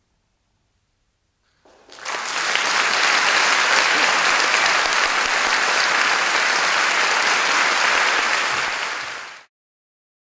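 Audience applauding. It starts out of silence about two seconds in, swells quickly to a steady, full round of clapping, and cuts off abruptly near the end.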